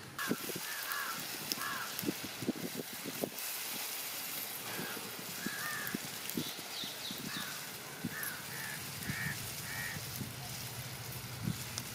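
Wooden spatula stirring and scraping thick crab fry in a metal pot, making many short scrapes and knocks. Birds chirp in short clusters in the background.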